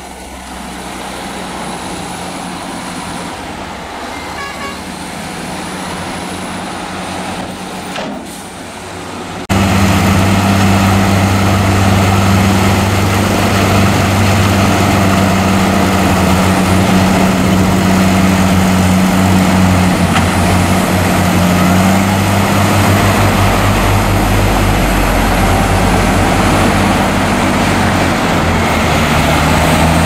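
Heavy diesel machinery running at a soil dump site: first a dump truck's engine at moderate level while its bed tips soil out. About a third of the way in it cuts to a much louder, steady low engine note from a Komatsu D63E crawler bulldozer pushing soil, with a deeper rumble joining in about two-thirds of the way through.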